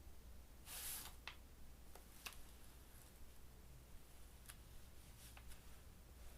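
Near silence: faint room tone with a soft swish of a paintbrush on thin tracing paper about a second in, then a few faint light taps.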